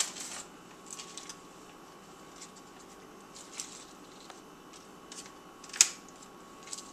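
Quiet handling sounds of fresh spinach leaves being laid by hand onto a flatbread pizza: soft, scattered rustles and light taps, with one sharper click about six seconds in.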